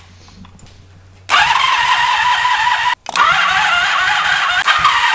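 1983 Honda Magna's liquid-cooled V4 engine fires up about a second in and runs loud and steady. This is its first start after a carburettor rebuild, fed from a remote fuel bottle.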